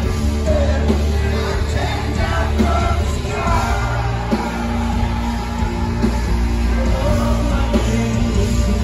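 Live rock band playing loud through a concert PA, a singer's voice over heavy, constant bass, heard from within the crowd.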